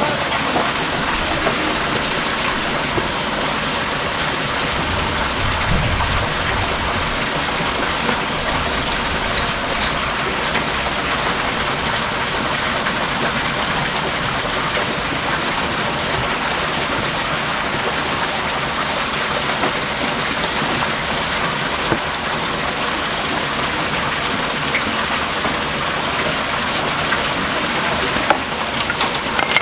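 A steady, even rushing noise throughout, with a few faint taps from a knife cutting squid on a plastic cutting board.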